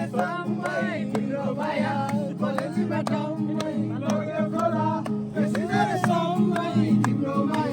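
Music: a song with singing and plucked guitar over a steady beat.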